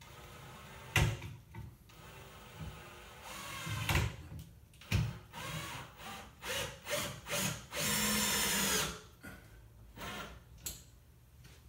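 Power drill run in several short bursts, then one steadier run of about a second near the end, with knocks and clicks in between.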